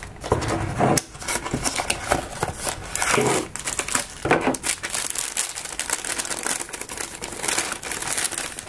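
Phone-case packaging being opened by hand: the cardboard retail box and inner tray rustle, and the clear plastic bag around the case crinkles, with many irregular small clicks and crackles.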